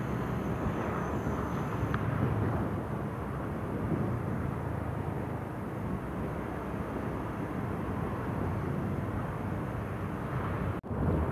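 Steady rush of wind and engine noise from a motorcycle on the move in traffic; the sound drops out for an instant near the end.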